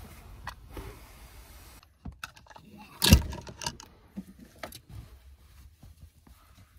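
Close handling noise in a small car interior: clothing rustling and the camera being moved about, with a few light clicks and one sharp knock about three seconds in.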